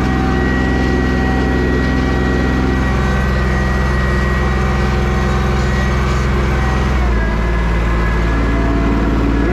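Tractor engine running steadily; its note changes about seven seconds in as the engine speed shifts.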